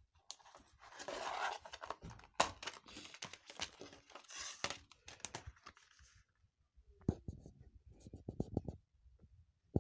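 Plastic Blu-ray case being handled and opened on a wooden table: rustling and scraping for several seconds, then a quick run of clicks and taps and one sharp click near the end.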